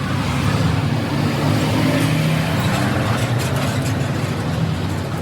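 A motor vehicle engine running steadily, with a few faint clicks a little past halfway.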